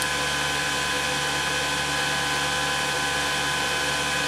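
K40 CO2 laser cutter powered up with its cooling and exhaust machinery running: a steady whirring hiss with a low hum and a few fixed tones.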